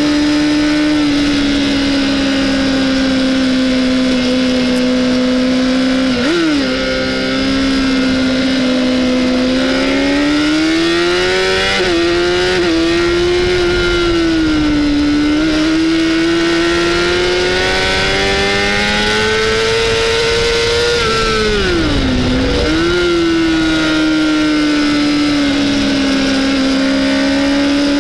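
Honda CBR600RR's inline-four engine running hard at high revs, heard from on the bike at race speed over a constant wind rush. The engine note rises and falls through the corners, with a few quick pitch jumps and one deep dip and recovery about two-thirds of the way through.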